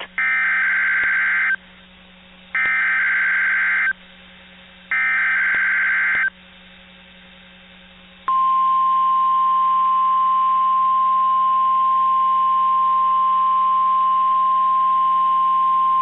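NOAA Weather Radio SAME alert signal for a Required Weekly Test: three loud bursts of screechy digital header tones, each about a second and a half long and about a second apart. About eight seconds in, the steady single-pitch warning alarm tone begins and holds.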